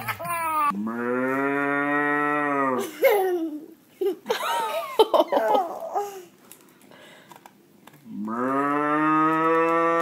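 A man's voice imitating a cow, twice giving one long, drawn-out moo that rises at the start and is held about two seconds, with short voice sounds between the two moos.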